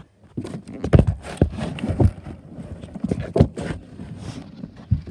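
Quick, irregular thumps and knocks, about two or three a second, of someone moving fast on a hard floor, with scraping as a handheld camera is jostled.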